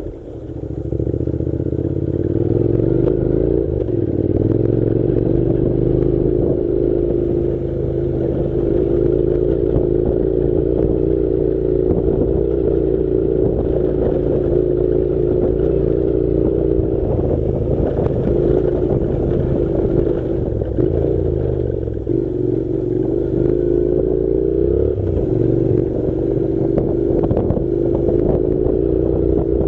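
Honda NC700's parallel-twin engine running as the motorcycle rides on a dirt road. It picks up about a second in, and its pitch dips and rises a few times with throttle and gear changes.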